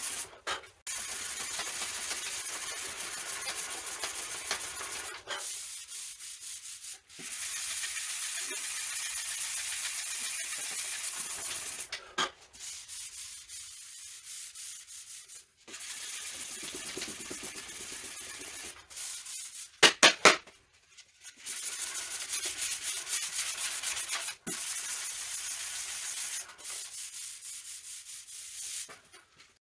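Hand sanding of plastic body filler on a car fender with a sanding block: stretches of steady scratchy back-and-forth strokes, broken by short pauses. About twenty seconds in comes a brief, much louder burst of several quick strokes.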